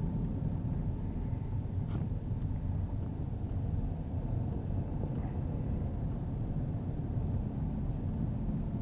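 Steady low road and engine rumble inside the cabin of a moving 2015 Ford Fusion, with a single sharp click about two seconds in. No seat-belt reminder chime sounds even though the driver is unbelted, which is the fault he is showing.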